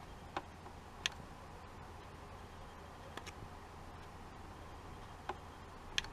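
Sharp ticks of a handheld sonic device's tip touching a toy ukulele's body, five at uneven spacing, over a faint steady hum.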